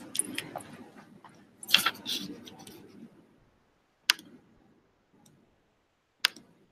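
Scattered short clicks and faint rustling for about three seconds, then two single sharp clicks about two seconds apart.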